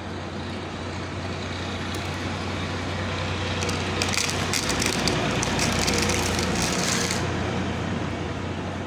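Gravel pouring and rattling from about 4 to 7 seconds in, over a steady low noise that swells and fades.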